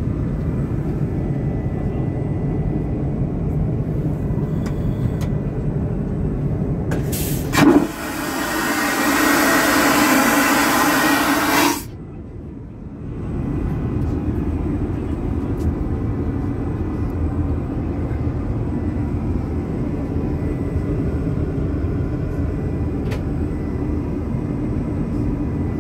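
Airliner cabin drone throughout; about eight seconds in, an aircraft vacuum toilet flushes with a sharp bang as its valve opens, then a loud rush of air for about four seconds that cuts off suddenly.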